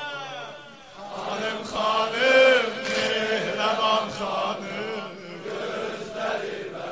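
Men chanting a Shia mourning lament (noha) in Azerbaijani Turkish, the voices holding long notes that bend and slide in pitch. The chanting is loudest about two seconds in.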